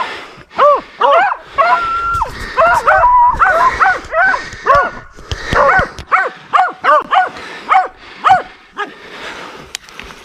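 Deer hounds giving tongue on a deer's track: a fast run of short chop barks, two to three a second, broken about two seconds in by a drawn-out bawl.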